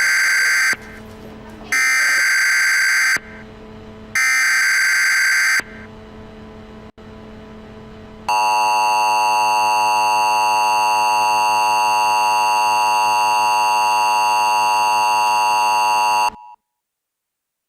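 Emergency Alert System tones: three loud data bursts of the digital header, each about a second and a half long with a short gap between them, then the steady two-tone attention signal, held for about eight seconds before it cuts off suddenly.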